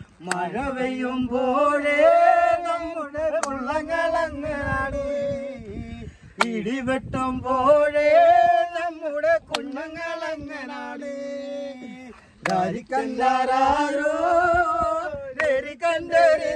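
A male voice singing a slow melody in long, held notes, with short breaks between phrases.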